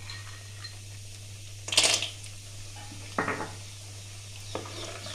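Bori (sun-dried lentil dumplings) being added to hot mustard oil in a kadai, with three short knocks and clinks against the pan, the loudest about two seconds in. A steady low hum runs underneath.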